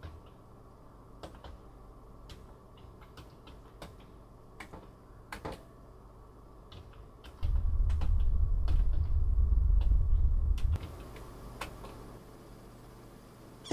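Scattered clicks of a computer keyboard being typed on. Just past halfway, a loud low rumble comes in for about three seconds, then stops.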